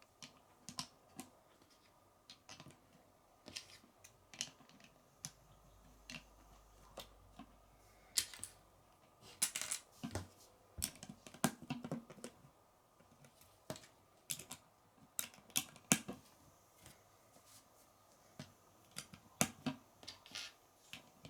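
Lego bricks being handled and snapped together: irregular small plastic clicks and taps, some in quick clusters.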